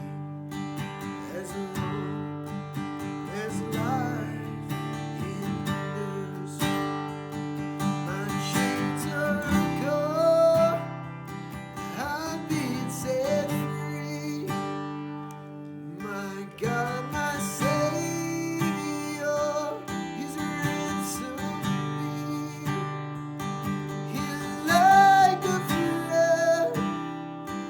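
Strummed acoustic guitar playing the chords of a worship song, with a melody line gliding above it in places.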